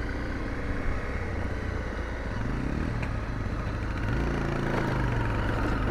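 Honda CRF250L single-cylinder four-stroke engine running under way on a dirt track, the revs climbing about two seconds in and again about four seconds in, where it gets louder.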